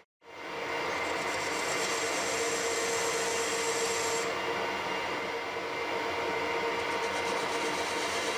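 Harrison 140 metal lathe running with its tool cutting a metal tube held in the chuck: a steady machine whine with the hiss of the cut. It starts after a brief gap, and the high hiss eases off about four seconds in.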